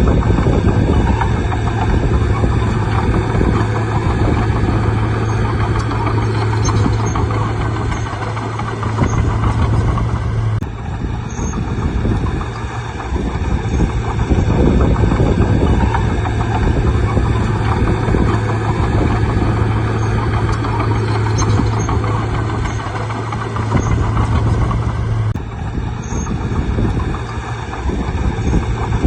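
Bulldozer's diesel engine running steadily under load, with a strong low hum, as the dozer works; the sound breaks off and resumes abruptly twice, about 11 and 25 seconds in.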